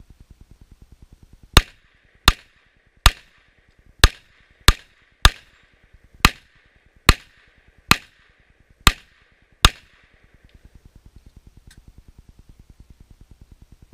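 Glock 41 pistol firing .45 ACP, eleven shots at a steady, unhurried pace of a little under a second apart, each ringing out briefly.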